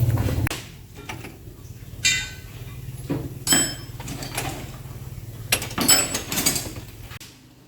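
Metal tools and parts clinking and knocking during work on a car's differential, several separate ringing metallic clinks. A low steady hum cuts off about half a second in.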